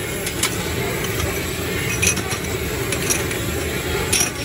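Handheld gas torch burning with a steady rushing noise, broken by several sharp clinks: two in quick succession near the start, then others about two, three and four seconds in.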